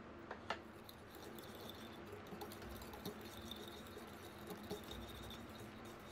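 Metal wire whisk stirring a thick mayonnaise-and-mustard dressing in a ceramic bowl, with light ticks and scraping of the wires against the bowl. A single sharp click about half a second in.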